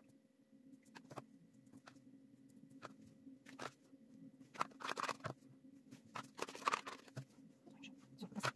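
Teaspoon spooning filling into hollowed-out cupcakes: scattered light clicks and scrapes against the cakes and paper cases, busiest about halfway through and again a second or two later.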